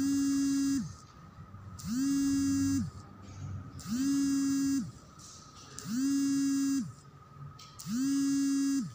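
A low buzzing tone sounds five times, evenly about every two seconds. Each one lasts just under a second, its pitch sliding up as it starts and down as it stops.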